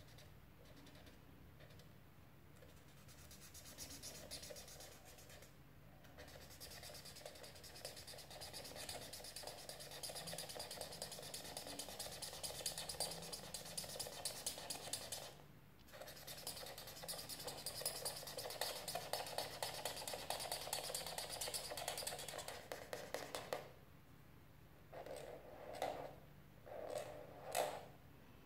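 Black felt-tip marker scratching on paper in fast back-and-forth strokes as it fills in a dark area, with a brief pause midway. A few separate short strokes come near the end.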